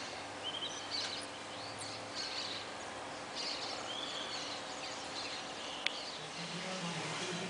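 Outdoor ambience of birds chirping and calling at intervals over a steady background hiss, with a single sharp click about six seconds in.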